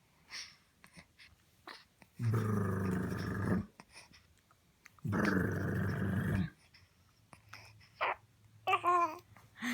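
Two loud growls, each about a second and a half long, a few seconds apart, rough and even in loudness with abrupt starts and stops.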